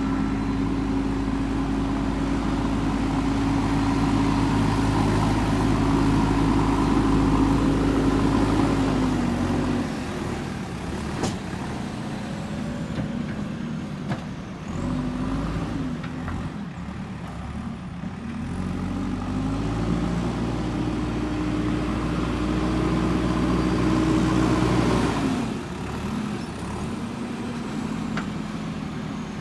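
JCB 3DX backhoe loader's diesel engine running at high revs under hydraulic load. The revs drop back about ten seconds in, climb again partway through, and drop once more near the end.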